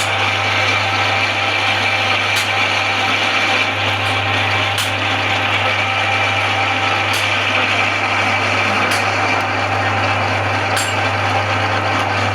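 Manual metal lathe running steadily, a constant hum under a dense machine noise, with a faint sharp click about every two seconds.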